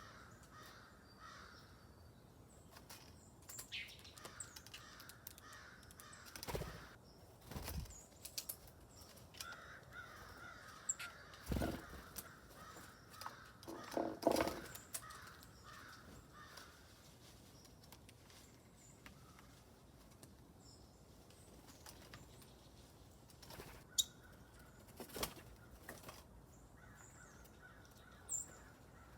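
Wild birds calling: harsh, caw-like calls among scattered chirps, with a few short soft thumps between about six and fourteen seconds in.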